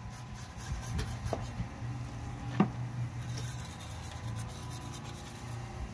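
A hand tool scraping as it scores a groove into fresh cement render, with scattered small clicks and one sharp click about two and a half seconds in.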